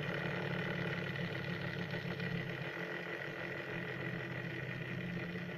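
Fidget spinner spinning freely on its bearing with a steady whirring hum that fades very slowly as it loses speed.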